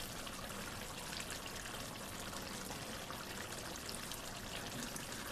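Duck curry simmering in an open pot: the water released from the meat is bubbling with a steady hiss and faint scattered pops.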